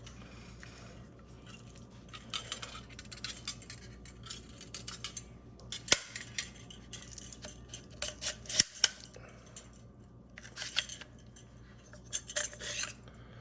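Small parts and their packaging being handled: intermittent rustling with light metallic clicks and clinks, and sharp clicks about six seconds in and again near nine seconds.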